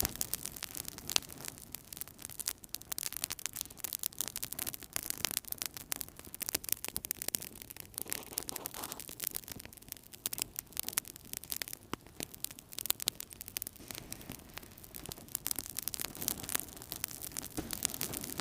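Wood fire crackling in a fireplace: a dense, irregular run of sharp pops and snaps over a soft low rush of burning.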